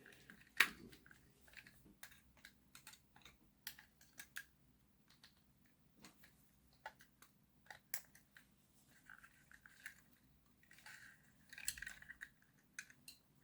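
Faint, scattered clicks and light scrapes of small plastic model-locomotive parts being handled and prised apart as a bogie frame is worked free, the sharpest click about half a second in.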